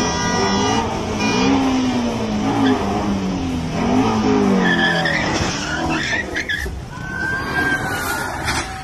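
A Ford Mustang's V8 engine revving up and down several times as it pulls away, with tyres squealing. After a cut, a long bending tyre squeal.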